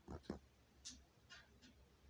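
Near silence in a small room, broken by two soft low thuds at the start and a few faint light clicks about a second in.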